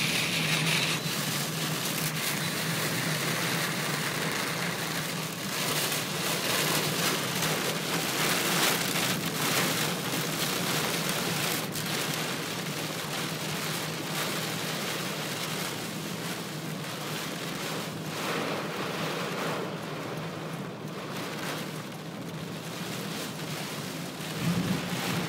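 Heavy monsoon rain beating on a moving car's windshield and roof, heard from inside the cabin, over a steady low hum of the engine and tyres on the wet road. The rain noise eases a little over the last few seconds.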